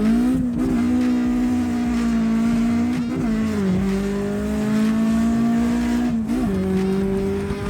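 Honda K20 Type R four-cylinder engine at high revs under hard acceleration. Its steady high note dips briefly three times, falling to a slightly lower pitch after about three seconds.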